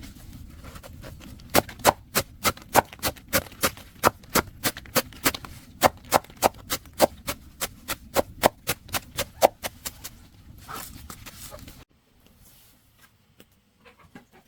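A rapid series of sharp knocks or strikes, about three a second, that stops near the end and gives way to a few faint ticks.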